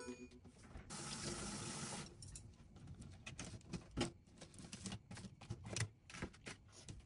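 A kitchen tap runs briefly for about a second. Then come scattered light clicks and taps of chopsticks and plastic containers as food is packed into a bento box.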